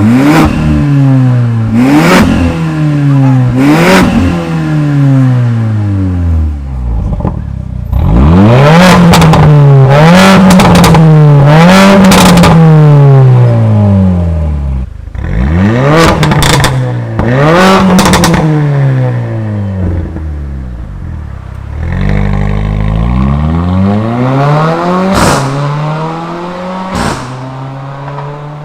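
Mercedes-AMG GLA45's turbocharged 2.0-litre four-cylinder revved again and again through a valved aftermarket catback and catless downpipe exhaust. The pitch climbs and drops with each rev, there are sharp cracks and pops as the throttle comes off, and the revs are held up for several seconds in the middle.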